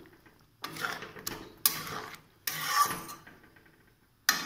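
Spatula scraping and knocking against a metal kadai of curry: five short strokes, the last one the sharpest.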